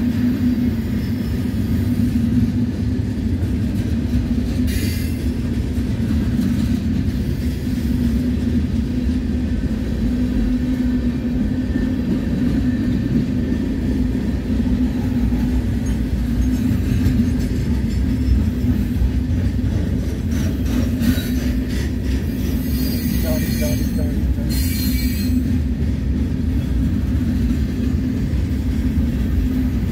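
Freight cars of a slow-moving mixed manifest train rolling past over the rails: a steady rumble and rattle of wheels on track, with brief high-pitched wheel squeals about five seconds in and again about two-thirds of the way through.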